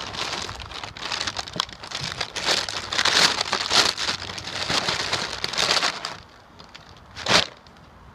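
Plastic packaging crinkling and rustling as a parcel is opened by hand, dense and continuous for about six seconds, then dying down. One short loud rasp about seven seconds in.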